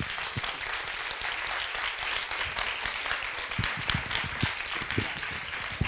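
Audience applauding: many people clapping at once in a steady patter of hand claps.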